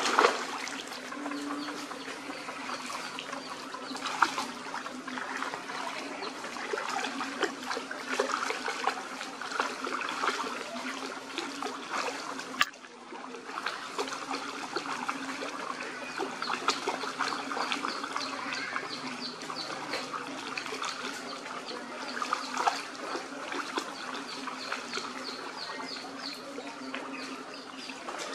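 Dogs wading and splashing through a shallow muddy rainwater puddle: water sloshing and trickling with many small splashes, over a steady low hum.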